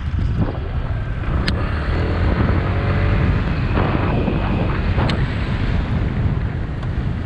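Wind buffeting the microphone of an action camera on a motorbike, a steady low rumble, with a couple of sharp clicks.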